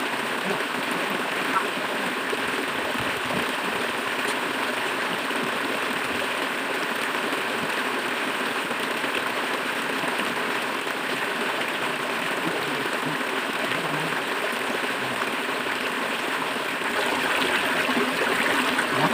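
River water running steadily, getting a little louder near the end.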